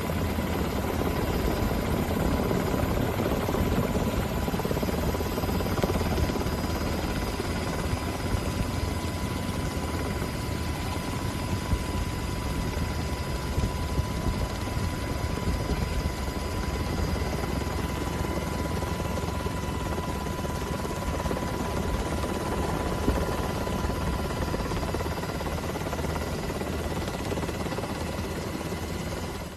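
Steady low rumbling noise, with a faint steady whine above it.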